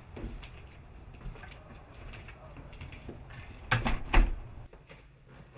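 Low rustling movement, then a door shutting with two loud thumps close together about four seconds in.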